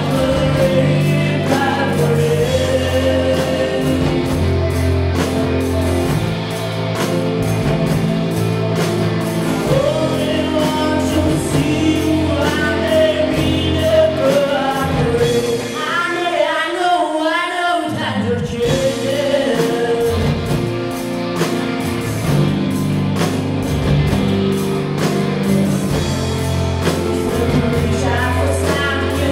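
Live pop-rock band (electric guitar, bass guitar, drums and keyboard) with female vocalists singing long held notes. About sixteen seconds in, the bass and drums drop out for a couple of seconds under a solo vocal run, then the full band comes back in.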